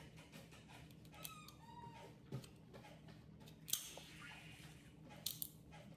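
Lobster shell being cracked and picked apart while eating, giving a few sharp cracks and clicks, one a little past the middle and two close together near the end. A brief high squeak sounds about a second in.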